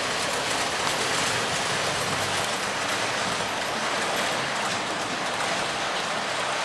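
Model railway wagons rolling past close to the microphone: a steady rushing clatter of many small wheels on the rails.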